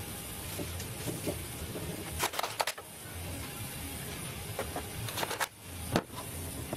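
A few light clicks and knocks as Blum drawer parts, a white panel and an aluminium extrusion, are handled and fitted on a workbench. A cluster of clicks comes about two seconds in, a couple more follow later, and a sharper knock comes near the end, all over a low steady hum.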